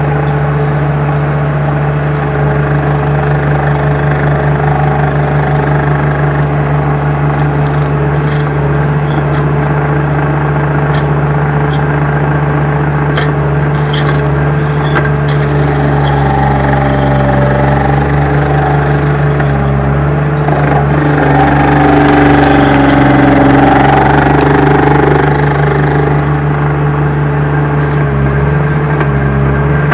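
Derette V1000 mini skid steer's engine running steadily while its stump grinder attachment grinds a stump. The machine's note shifts and grows louder for several seconds past the middle as the grinder works harder.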